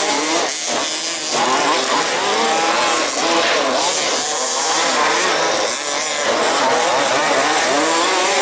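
Several 1/5-scale RC off-road buggies' small two-stroke petrol engines racing together, each whining higher and lower as they rev up and ease off around the track.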